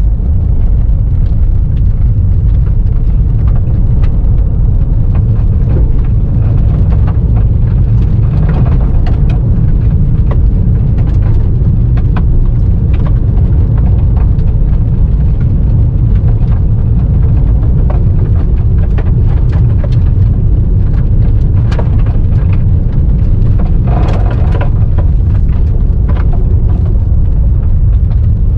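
Road noise heard inside a car's cabin on a gravel road: a steady low rumble from the tyres, with scattered ticks of loose stones striking the car.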